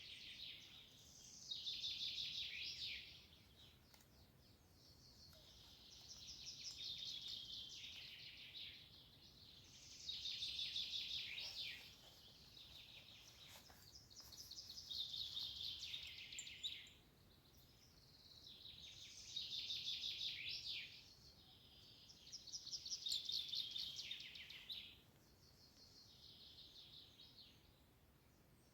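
A songbird singing the same fast-trilled phrase over and over, each song two to three seconds long and often dropping at the end, with a pause of a second or two between songs. Faint steady outdoor background hiss underneath.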